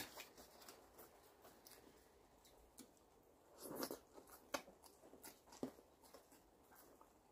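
Faint chewing and mouth sounds of a person eating sticky rice and shrimp by hand, with a few small scattered clicks and smacks, the most noticeable about four seconds in.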